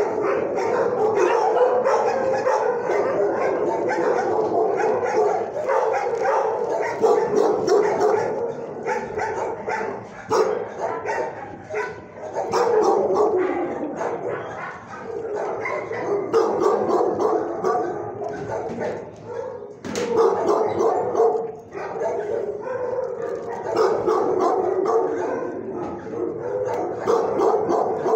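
Many dogs barking at once without letup in a shelter kennel, a dense overlapping chorus.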